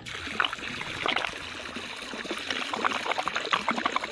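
Water from a bass boat's Flow-Rite livewell pump-out jetting from the hull outlet and splashing steadily into the lake: the livewell being drained by its pump.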